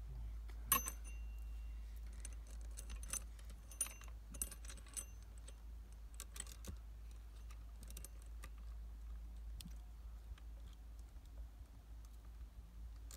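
Steel saw chain for a Sterwins PCS2-35.3 chainsaw clinking and rattling as it is handled and fitted over the guide bar. One sharp metallic click under a second in is the loudest, followed by scattered light clinks.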